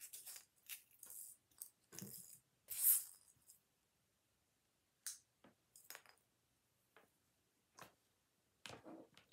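A styrofoam egg and a hot-wire styrofoam cutter being handled: short scratchy scrapes and rustles, the loudest about three seconds in, then a few separate light clicks and taps.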